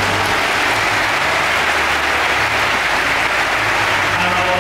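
Audience applauding steadily, a dense clapping from a large crowd.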